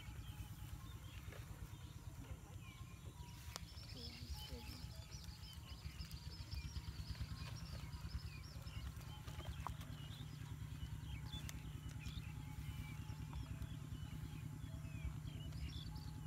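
Faint outdoor ambience: a steady low rumble under many short, high chirps.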